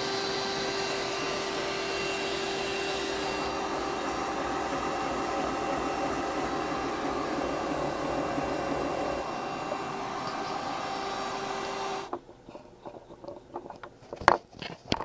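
Canister vacuum cleaner running as dust extraction for a homemade scroll saw, a steady whine with several constant tones. The noise stops abruptly about twelve seconds in, and a few sharp clicks follow near the end.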